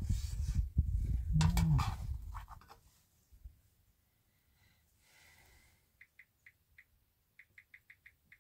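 A short animal call over low rumbling noise in the first few seconds, then a run of quick, high chirps near the end.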